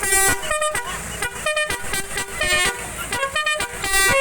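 Telolet horn on an odong-odong kiddie-ride vehicle sounding a string of short tooting notes at changing pitches, about two a second.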